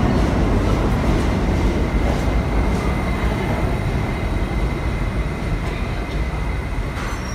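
Kawasaki R68A subway train rolling into a station and slowing, a steady rumble of steel wheels on the rails with a faint high steady tone above it, easing gradually quieter.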